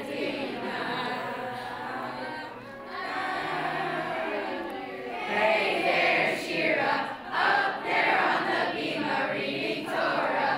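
A congregation of schoolchildren singing a prayer together in unison, growing louder about halfway through.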